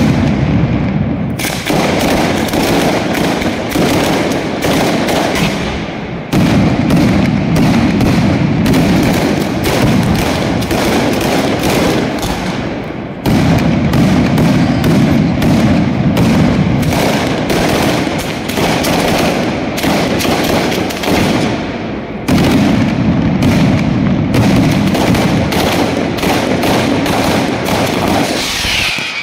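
Ground firecrackers going off in a dense, continuous rattle of rapid bangs. The rattle comes in four runs, each starting with a sudden jump in loudness, and dies away at the very end.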